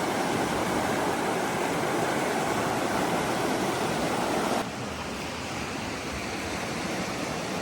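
Spring water rushing and gushing steadily out of the ground. About halfway through the rush drops suddenly to a quieter, thinner level.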